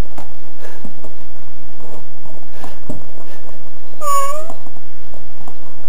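A domestic cat meows once, about four seconds in: a single call of about half a second that dips and then rises in pitch.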